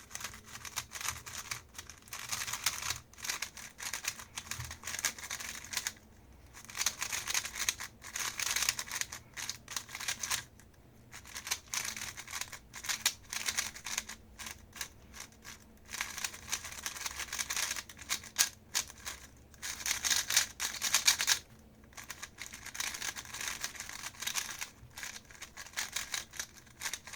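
XMD Tornado V3M Pioneer magnetic 3x3 speedcube turned fast by hand on its first turns out of the box: rapid plastic clicking and clacking of the layers in runs of several seconds, with brief pauses between. The cube turns fast and smoothly with a fairly quiet sound.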